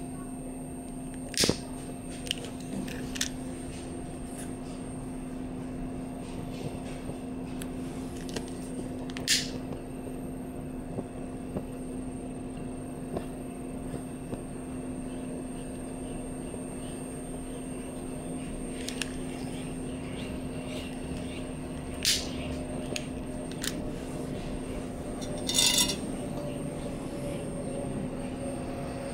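Handling of a Vargo Triad alcohol stove as it is lit: a few sharp clicks and knocks spaced several seconds apart, and a short cluster of metal clinks near the end as a cooking pot is set over the flame, all over a steady low hum.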